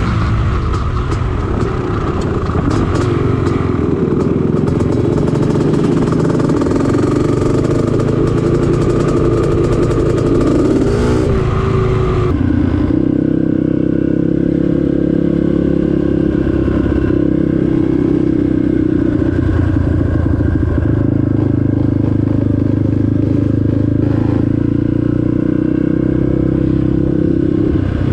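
Off-road vehicle engine running continuously while riding. Its tone shifts about twelve seconds in, then holds steady.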